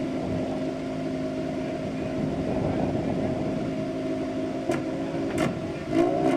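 Off-road race vehicle engine running at a steady speed. Near the end its pitch begins to rise and fall as it revs, with a couple of sharp clicks shortly before.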